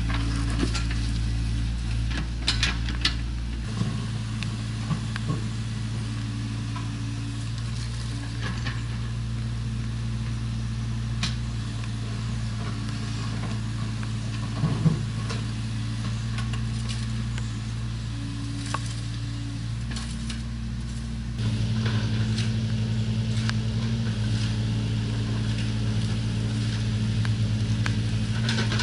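Hydraulic excavator's diesel engine running steadily, with scattered knocks and clicks of the bucket working soil and stones. The engine note shifts abruptly twice, about four seconds in and again about two-thirds of the way through, where it gets louder.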